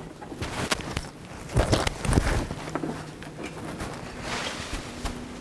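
A person getting up from an office desk chair and moving off, with chair, clothing and handbag handling noises and shuffling footsteps. There are a couple of dull thumps about one and a half and two seconds in.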